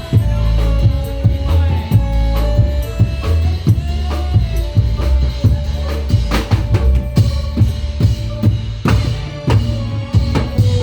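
Loud Javanese patrol music (patrolan) played live: dense drumming with heavy bass-drum strokes and sharp percussion hits under a held melody line.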